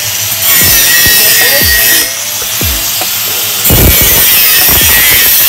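Grinder grinding out a root concavity defect in a pipe weld: a loud, harsh hiss that eases off about two seconds in and bites again at around three and a half seconds. Background music with a steady thumping beat plays underneath.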